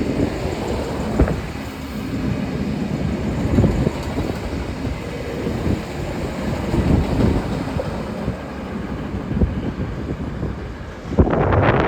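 V/Line VLocity diesel multiple unit running through the station, a steady rumble with a few sharp clicks from the wheels over the track. Near the end a sudden loud rush of wind buffets the microphone.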